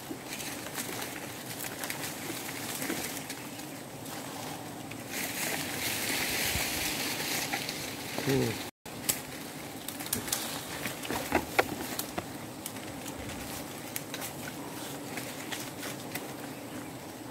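Swarm of wild honeybees humming steadily around their nest, with leaves and branches rustling and snapping close by, a stretch of hiss about five seconds in and an abrupt cut near the middle.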